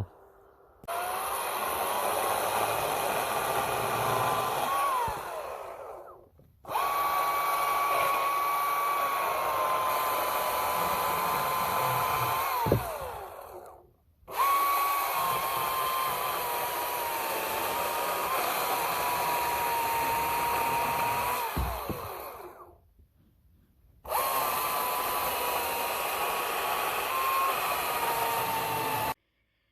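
Ego 20-inch battery-electric chainsaw running and cutting firewood: a steady motor and chain whine that sags a little in pitch as the chain bites into the wood. It runs in four stretches with short silent gaps between them, and there is a thud near the end of two of them.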